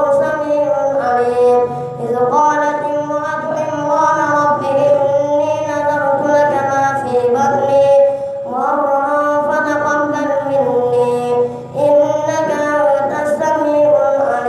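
A boy's voice reciting the Quran aloud in long melodic phrases, leading a prayer as imam. Held notes wind and glide between pitches, with short breaths about two seconds in, about eight seconds in and near twelve seconds.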